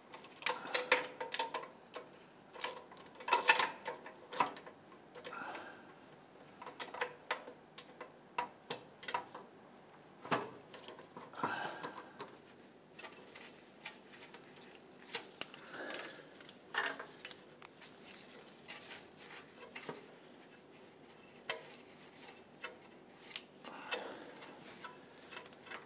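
Ratchet clicking in short runs, with metal clinks of the socket and tool, as an O2 sensor socket unscrews an upstream oxygen sensor whose threads have already been broken free.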